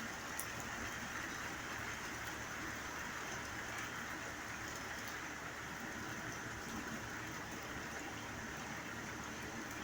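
Steady rain falling, an even hiss with one small tick about half a second in.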